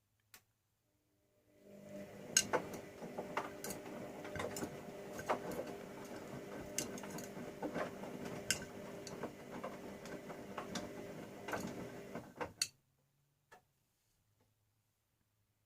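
Bauknecht Super Eco 6413 washing machine turning its drum in the wash phase: the motor hum starts about a second and a half in, with irregular clicks and knocks from the laundry tumbling in the drum, and stops abruptly near the end as the drum pauses.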